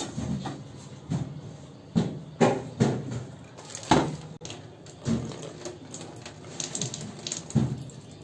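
A string of irregular knocks and clicks, several seconds apart at first and then closer together, from hands-on work on the installation.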